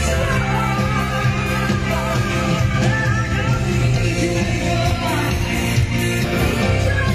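Live concert music: an amplified band with a singer carrying the melody, loud and steady, heard in a large hall.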